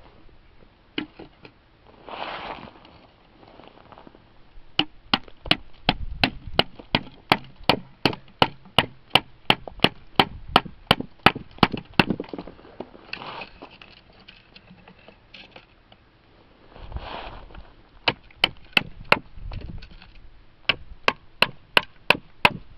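A hammer striking the spine of a G-10 and titanium composite knife, driving the blade cross-grain through a frozen wooden board. Quick sharp knocks, about three a second, come in two long runs with a pause between them.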